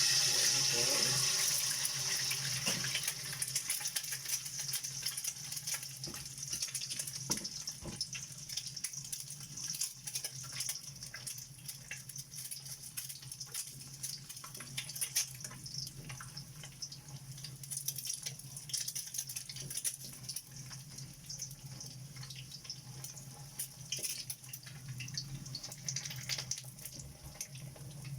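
Egg frying in hot oil in a wok: a dense sizzle with many small crackles and pops, loudest just after the egg goes in and slowly easing. A steady low hum runs under it.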